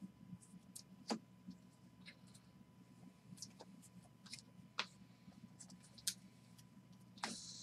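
Faint clicks and taps of trading cards in hard plastic holders being handled and stacked on a table, with a short rustle near the end.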